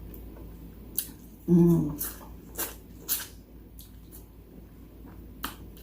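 Close-miked eating sounds of chicken wings being chewed: a string of short wet mouth clicks and lip smacks, with a short hummed "mm" about one and a half seconds in.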